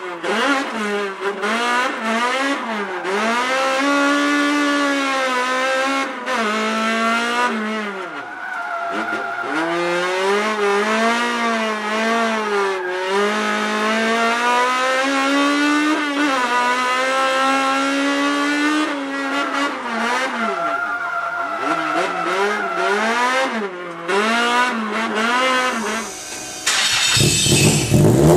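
Toyota AE86's 4A-GE twin-cam four-cylinder engine revving high, its pitch climbing and falling again and again with a couple of deep drops in revs. Near the end it cuts abruptly to a different, louder engine sound.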